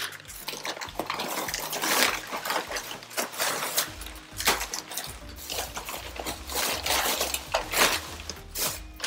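Rustling and crinkling of a foil bubble-insulation liner and plastic-wrapped meat packages being handled and lifted out of a delivery box, in quick irregular crackles. Background music comes in about four seconds in.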